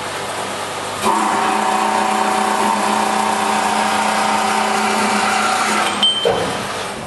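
Metal-cutting bandsaw (E300RH) running: about a second in the blade bites into a metal workpiece and cuts with a steady whine of several tones. Near the end there is a sharp click and the sound dies away.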